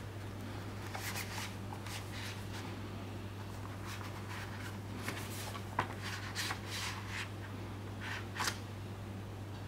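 A Blu-ray case sliding out of its clear plastic slipcase in gloved hands: plastic rustling and scraping in short strokes, with a few sharp clicks, over a steady low hum.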